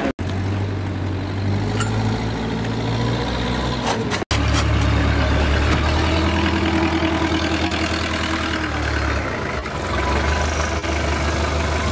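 A boat engine idling steadily with a low hum, its pitch shifting slightly a couple of times.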